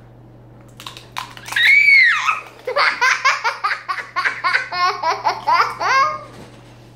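A young boy laughing hard: a high squeal that rises and falls, then a long run of quick pitched 'ha-ha' bursts, about four a second, that stops shortly before the end.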